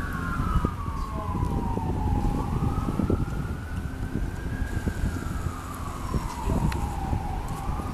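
Emergency vehicle siren in a slow wail, its pitch falling and rising again about every five seconds, over a low traffic rumble.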